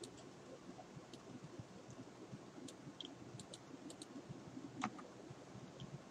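Faint, scattered clicks of a computer keyboard and mouse, about a dozen, the loudest a little under five seconds in, over a low steady background hum.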